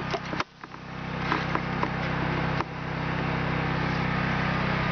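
Generator engine running steadily with a low, even hum, briefly dipping about half a second in and again past halfway. A few light clicks sound over it in the first couple of seconds.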